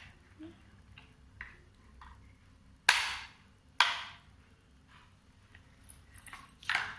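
Two sharp snaps about a second apart, each fading quickly, followed by a few lighter clicks near the end: small plastic parts of a toy fan kit being handled and pressed into place.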